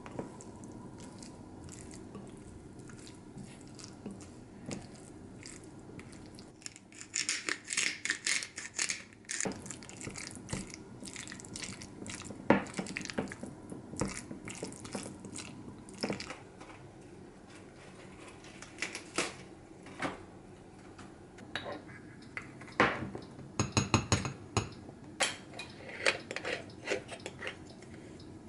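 Wooden chopsticks stirring mashed boiled egg, tuna and mayonnaise in a glass bowl, with irregular scraping and clicking against the glass, busiest about seven to ten seconds in. A cluster of sharp clinks comes near the end, from handling an aluminium moka pot.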